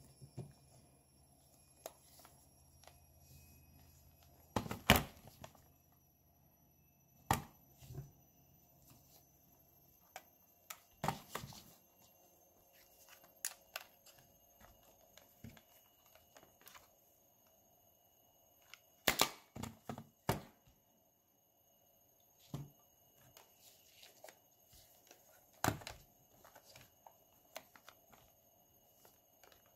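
Handling noise from two Sony Walkman cassette players, a WM-F15 and a WM-9, being picked up, opened and set down on a tabletop: scattered plastic clicks and knocks, a few much louder than the rest, over a faint steady hum.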